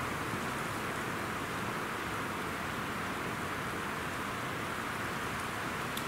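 Wind blowing through pine trees over choppy lake water, making an even, unbroken hiss.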